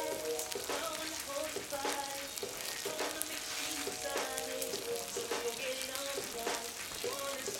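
Meat and sliced onions sizzling in hot oil in a cast-iron kazan, a steady hiss with frequent sharp crackles and pops.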